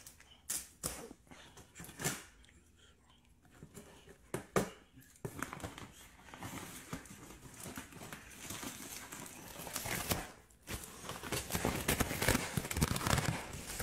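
Cardboard box packaging being handled and opened: a few separate knocks, then from about five seconds in, continuous rustling, crinkling and tearing, with a short pause near the ten-second mark.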